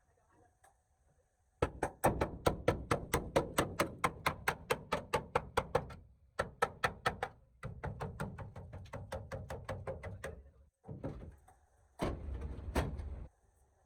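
Rapid run of sharp knocks, about five a second, in several bursts, with a louder burst and two hard strikes near the end.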